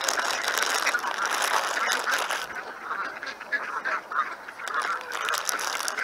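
A group of ducks quacking and calling together, a dense overlapping chatter of calls. Over the first couple of seconds a rapid scatter of sharp clicks runs over them.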